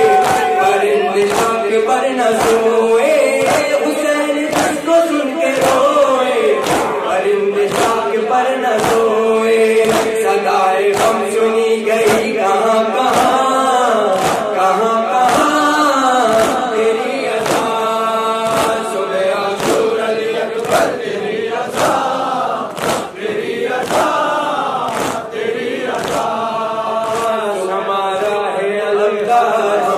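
A noha (Urdu mourning lament) sung by a male reciter into a microphone, with the crowd chanting along. Under it, a steady beat of chest-slapping matam lands in unison, about three slaps every two seconds.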